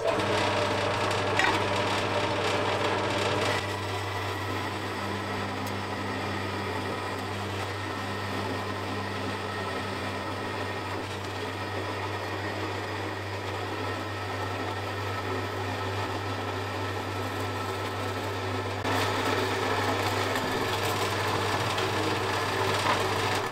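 Vertical bandsaw cutting through 15 mm thick aluminium plate: a steady motor hum with the blade rasping through the metal. It is a little louder for the first few seconds and again near the end.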